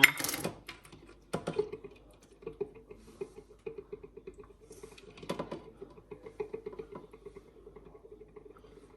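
Dry lasagna sheets being broken to fit and laid in a baking tray: a few sharp cracks (one at the start, one about a second and a half in, one past the middle) amid a scatter of small irregular clicks and taps. A faint steady hum runs underneath.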